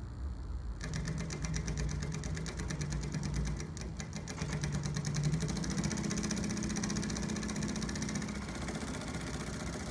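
Three-needle feed-off-the-arm chainstitch sewing machine with double pullers running at speed, stitching a seam through denim. It starts about a second in with a fast, even stitch rhythm and picks up speed a little about halfway.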